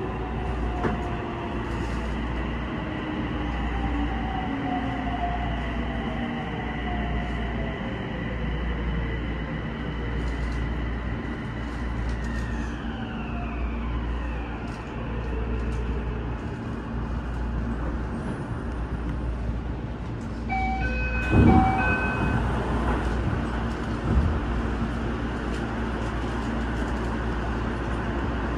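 Toei 6300 series train slowing into a station, heard from inside the car: its motor whine falls steadily in pitch over the low rumble of the running gear. About three-quarters of the way through come a few short electronic chime tones and a thump, with a smaller thump a few seconds later.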